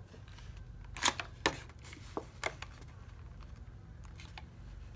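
Cardboard trading-card booster box being handled and its lid opened: a few short, sharp cardboard clicks and taps, the loudest about a second in.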